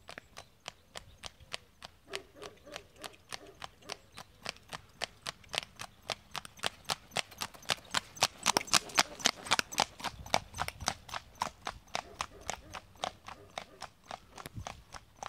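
Icelandic horse's hooves striking a paved lane in an even, quick four-beat rhythm of about four or five hoofbeats a second, typical of the tølt. The hoofbeats grow louder as the horse comes closer, are loudest about halfway through, then fade as it moves away.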